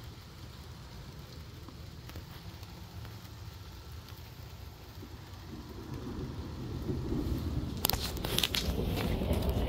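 Heavy rain pouring down, a steady noise that grows louder about six seconds in, with sharp taps and splashes near the end as drops hit the concrete close by.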